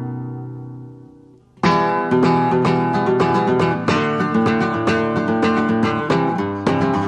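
Background music on acoustic guitar: a held chord fades away over the first second and a half, then quick plucked playing starts abruptly and carries on.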